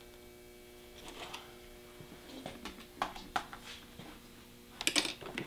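Faint handling noises of hands working the hide of a deer head mount and placing cardboard cards on it: a few light taps and rustles, a small cluster near the end, over a steady low hum.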